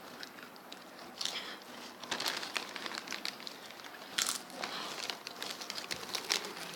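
Chips being eaten from a crinkly packet: irregular crackling and crunching, with one sharper crackle about four seconds in.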